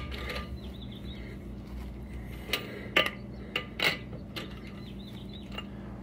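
A four-way cross lug wrench on a wheel's lug nuts during a final tightening pass: about five separate metallic clicks in the second half as the wrench is fitted and turned, over a low steady hum.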